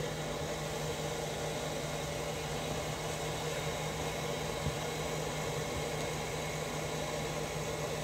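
Steady hum and hiss of a hair dryer blowing hot air into a drum used as a heating chamber to soften shoe glue.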